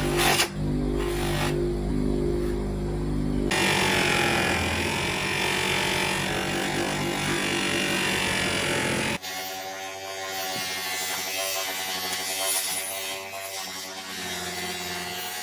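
DeWalt bench grinder with a buffing wheel running with a steady motor hum. A steel sword blade pressed against the spinning wheel adds a loud rubbing hiss from about three seconds in. About two-thirds of the way through, the hiss cuts off and a lighter, differently pitched hum carries on while the blade is buffed.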